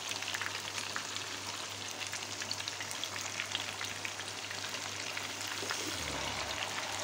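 Pieces of bacem tofu deep-frying in hot oil in a pan: a steady sizzle thick with tiny crackling pops.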